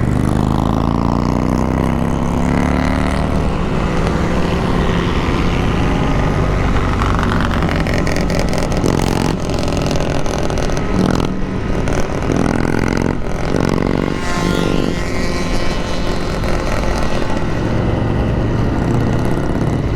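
Motorcycle engine heard from the rider's seat, running at road speed with steady wind rush on the microphone. The engine note climbs and drops several times as it accelerates and shifts.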